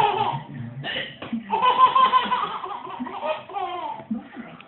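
A young child laughing in a fit of the giggles, high-pitched and in repeated bursts, loudest about two seconds in.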